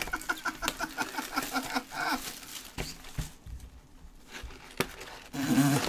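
Plastic shrink wrap crinkling and rustling as a gloved hand pulls it off a sealed box of trading cards. It starts with a quick run of short squeaks and goes on as scattered crackles.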